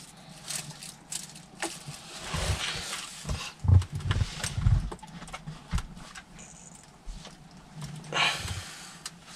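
Handling noises from car dashboard trim work: scattered clicks and knocks of plastic parts, a few dull thumps, and rustling of plastic bin bags.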